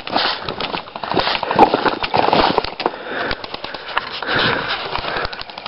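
Close rustling and scraping right at the microphone, full of irregular crackles and clicks, with heavy breathing.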